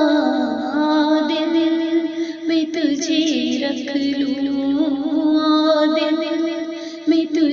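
A woman singing an Urdu naat, drawing out long, wavering held notes.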